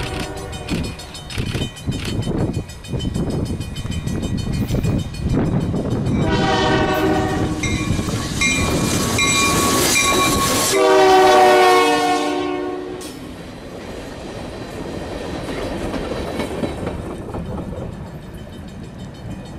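Union Pacific freight locomotives passing with the air horn sounding. The horn gives a long blast about six seconds in, and its pitch drops as the lead locomotive goes by, the loudest moment. After that comes the steady rumble and clatter of the train rolling past.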